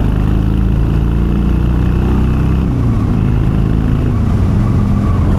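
Harley-Davidson Sportster's air-cooled V-twin running through Vance & Hines Twin Slash 3-inch slip-on mufflers with quiet baffles, with a mellow exhaust note. The revs dip about halfway through, then the engine runs on steadily.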